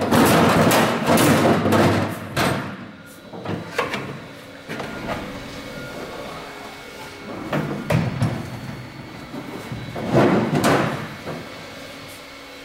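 A thin bead-rolled sheet-metal panel being handled and pushed into place against a car's bare steel floor and wheel well. It scrapes, rattles and knocks, with the loudest stretch in the first couple of seconds and more about eight and ten seconds in.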